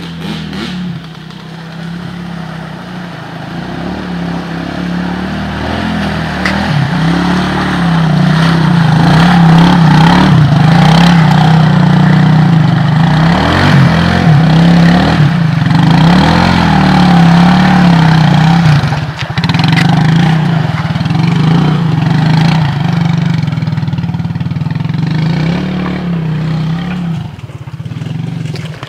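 ATV engine revving hard in repeated rises and falls as the quad churns through deep mud and water, building to its loudest in the middle and easing off near the end.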